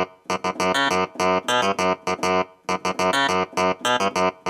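Korg Triton workstation keyboard playing a repeating riff of short, piano-like chord stabs separated by brief gaps.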